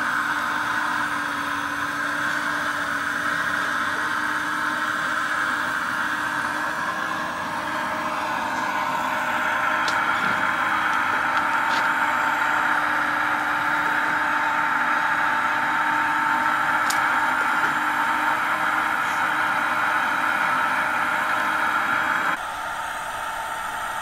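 Radio-controlled model excavator running, a steady mechanical whirr and hum of its drive and pump, which grows a little louder partway through and drops suddenly near the end.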